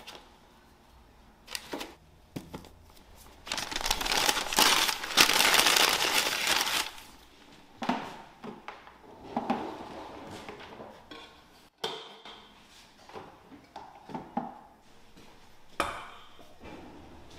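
Kitchen handling noises: a loud crinkling rustle for about three seconds, then scattered light knocks and clatters of things being handled and set down.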